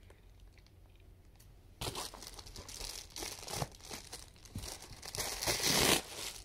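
Package being torn open and crinkled by hand to get a plush toy out, a run of crackly rustling and tearing that starts about two seconds in and is loudest near the end.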